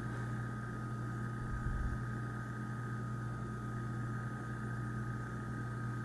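Steady background hum with a faint fixed high tone, and one soft low bump about a second and a half in from handling of the lock movement in the hands.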